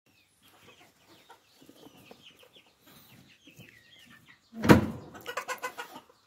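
Chickens clucking, a run of short calls with a louder burst near the end, and a sudden loud rustling bump a little past the middle, most likely a hand going into the hay-and-fur nest.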